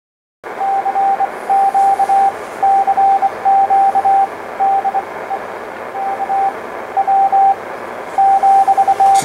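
Morse code (CW) signal received on an SBE SB-36 HF transceiver tuned to the 20-metre CW band: a steady single-pitch tone keyed in dots and dashes over receiver hiss, starting about half a second in.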